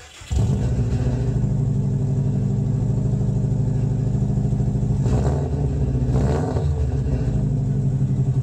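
A car engine idling, heard at the exhaust: a steady, lumpy low pulse that starts suddenly, with two brief disturbances about five and six seconds in.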